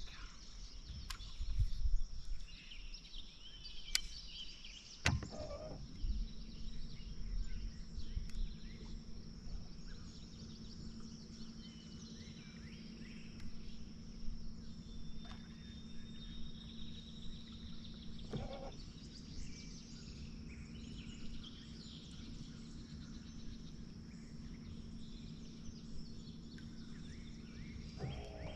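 Early-morning outdoor ambience on open water: a steady high insect drone with scattered bird chirps. A few sharp clicks come in the first five seconds, and a steady low hum starts about five seconds in and runs on.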